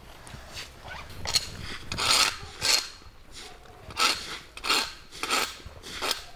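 Straw broom sweeping grit on an asphalt road: a run of short rasping strokes, roughly one every two-thirds of a second.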